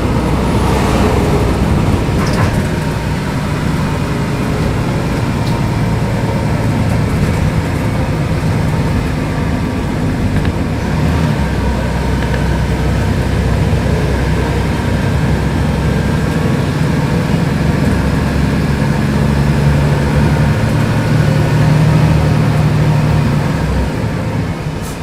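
Diesel engine of a Mercedes-Benz O500UDA articulated bus running as the bus drives, with a steady low hum and road noise; the engine note grows louder around twenty seconds in, then eases off near the end.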